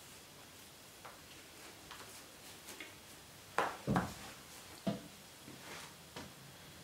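Shoelaces being pulled and tied, with soft rustles and small clicks, then three dull thumps about halfway through as the shoes are set down on a jute rug.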